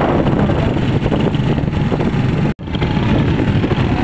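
Steady motor-vehicle noise, with engine and road rumble. The sound cuts out sharply for a split second about two and a half seconds in.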